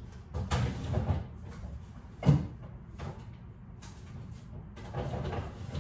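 Rummaging through an open refrigerator: packages and containers shifting and rustling, with one sharp knock about two seconds in.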